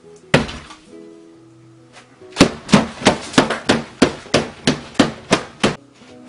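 Hands slamming down on a dinner plate and tabletop: one hard bang, then after a pause about a dozen rapid bangs, roughly three a second, with light plucked-string music underneath.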